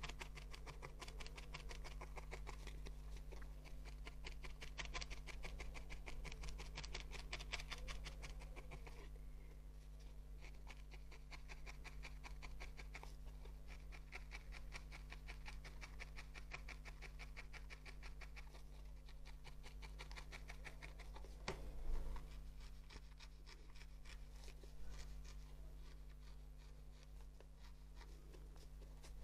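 A barbed felting needle being jabbed rapidly and repeatedly through wool into a foam pad, a fast, even run of soft ticks. One tick a little past two-thirds of the way through is louder. A steady low hum lies underneath.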